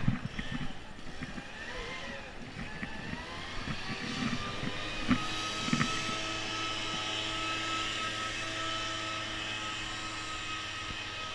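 A motor running with a steady hum and a constant whine, settling in about five seconds in after two sharp knocks.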